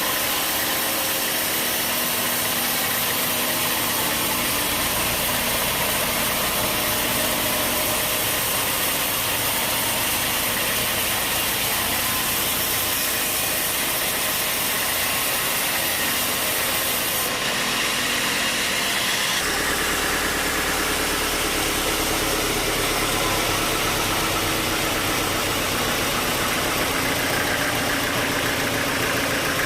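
Sawmill machinery running steadily with a constant engine drone and noise; the sound changes abruptly twice a little over halfway through.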